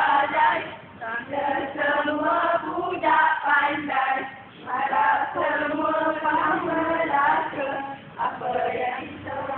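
A group of women singing a song together.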